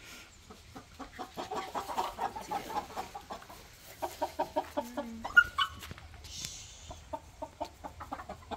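Domestic chickens clucking in quick runs of short calls, with one louder rising squawk about five seconds in.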